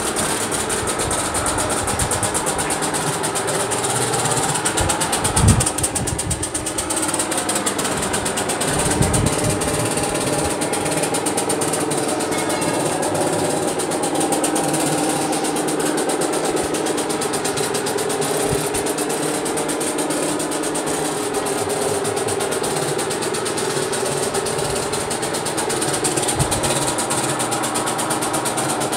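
Diesel truck engine idling steadily, with a short low thump about five seconds in.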